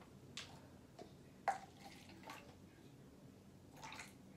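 A few faint, short knocks and splashes as juice is poured from an aluminium can into small plastic cups, the loudest about a second and a half in.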